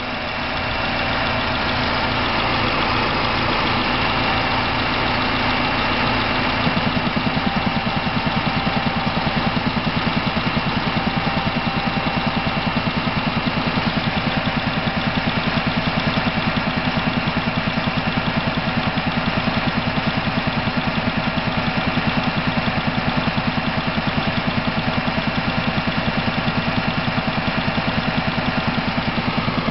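Mercedes-Benz A-Class W168 A140's 1.4-litre four-cylinder petrol engine idling with a strange noise. About seven seconds in, a fast, even pulsing sets in and runs steadily on top of the idle.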